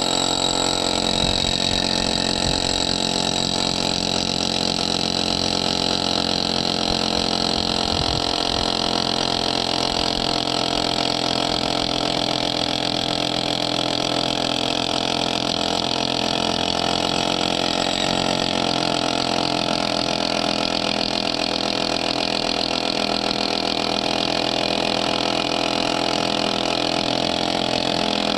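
Hilti TE 72 rotary hammer with a one-inch SDS-max bit, drilling through a foundation wall. It runs steadily and loud, without a pause.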